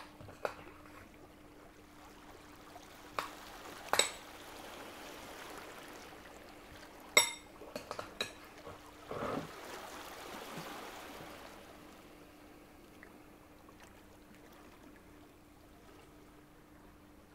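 Kitchen preparation: a few sharp clinks and knocks of utensils against dishes, the loudest a ringing clink about seven seconds in, over liquid being poured that fades away in the last few seconds. A faint steady hum runs underneath.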